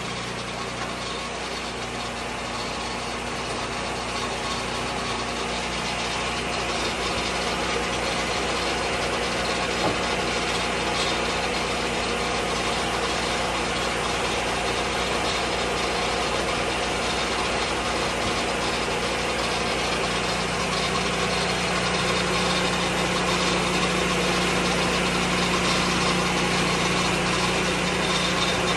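Lucas Mill 10-30 portable sawmill's engine running steadily under power, with a hum that grows slowly louder over the stretch.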